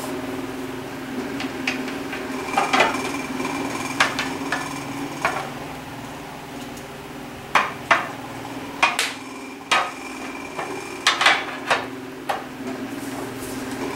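Steel pry bars knocking and clanking against a Husqvarna 394XP chainsaw's crankcase, a dozen or so sharp metallic strikes at irregular intervals, as the case halves are forced apart. A steady hum runs underneath.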